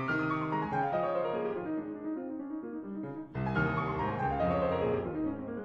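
Background piano music: runs of notes falling in pitch, with a short break about three seconds in before a new phrase begins.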